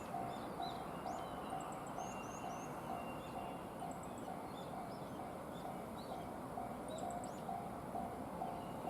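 Japanese railway level-crossing alarm ringing, a single electronic tone repeating about every 0.6 s, with small birds chirping.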